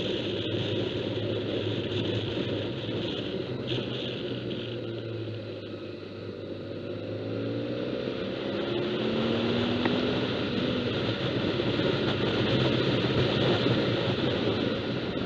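Motorcycle engine running at road speed, heard from the bike itself, with wind and road hiss. Its note climbs about halfway through as it accelerates out of a curve.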